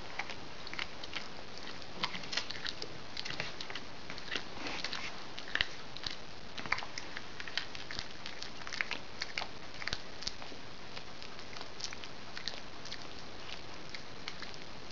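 Domestic cat chewing and crunching a mouse: a run of short, irregular crunches and clicks, several a second, as it bites through the carcass.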